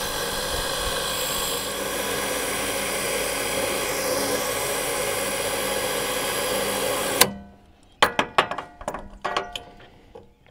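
Electric winch on the front bumper running steadily, winding its cable, for about seven seconds, then cutting off suddenly. A scatter of sharp clicks and clacks follows as the line and hook are handled.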